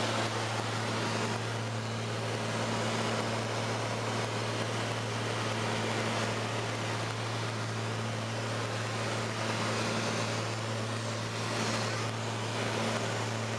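Airliner cabin noise in flight: a steady low engine drone with two constant pitches over an even rush of airflow, heard from inside the cabin.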